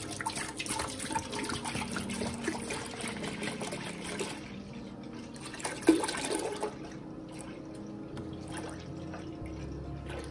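Milk pouring in a steady stream from a plastic jug into a stainless steel pot, splashing and trickling on the milk already in the pot. There is one louder slosh about six seconds in.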